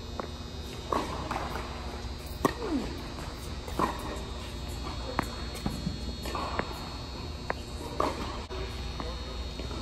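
Tennis balls struck by rackets during a rally, a sharp pock about every second and a half, with a short echo in an indoor tennis hall.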